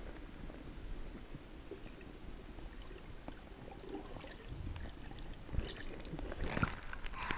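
Muffled underwater sound from the camera's housing: a steady low rumble with scattered faint clicks. About six seconds in come louder splashing and bubbling as the surface is broken.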